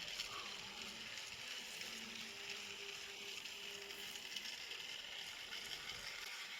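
Small toy train running along its track with a steady, quiet whir, and a faint hum in the middle.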